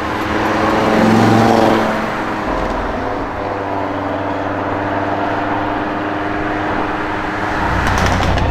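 Audi RS3's turbocharged five-cylinder accelerating past under load, loudest about a second in, then dropping in pitch and holding a steady note as it pulls away. Near the end a second engine rumbles at low revs, with a few sharp clicks.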